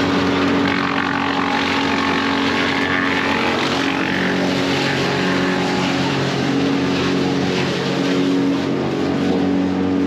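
Wood chipper engine running at a steady speed.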